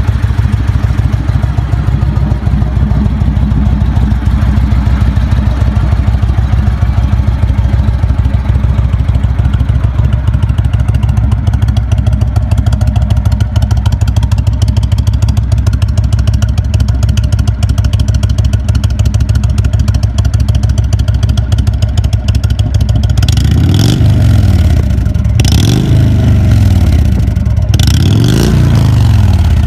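Indian Chieftain's V-twin engine fitted with a Samson aftermarket muffler, idling steadily, then revved three times near the end, each rev rising and falling back.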